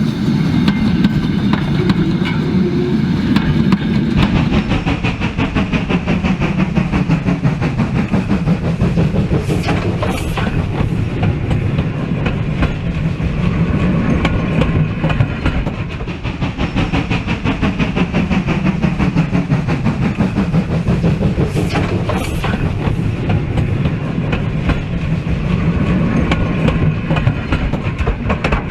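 Model train running along the layout's track: a steady rumble with rapid clicking from the wheels over the rails. Two brief sharp high sounds cut through about ten seconds in and again about twenty-two seconds in.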